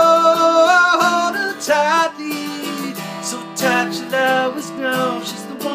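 A man singing to his own strummed acoustic guitar, holding a long sung note through the first second before shorter sung phrases.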